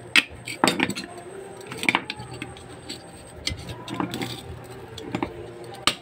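A small hammer tapping a new bushing into a washing-machine motor's metal end housing to seat it: about half a dozen sharp metallic knocks, irregularly spaced.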